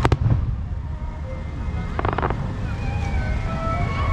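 Fireworks bursting: a sharp bang with a low thump at the start and a short crackling burst about two seconds in. Crowd chatter and a steady low rumble run underneath.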